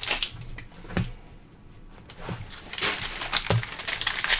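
Trading-card pack wrappers and cards being handled: crinkling and rustling with a few light taps, about one a second, and a quieter lull in the middle.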